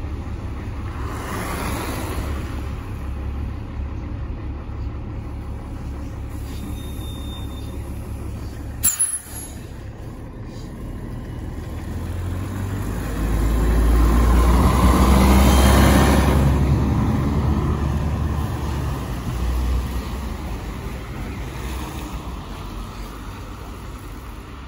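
GolAZ-AKA-5225 bus running, with one short sharp click about nine seconds in. Midway the engine and road noise swell to a loud peak, then fade away.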